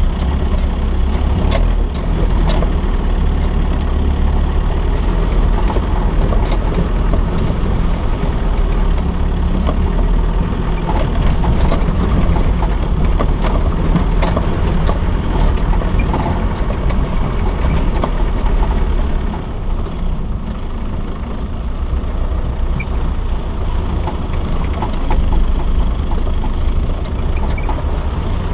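Off-road 4x4 driving slowly over a rough gravel track, heard from inside the cab: a steady low engine drone, with scattered rattles and knocks from the vehicle bouncing over the stones.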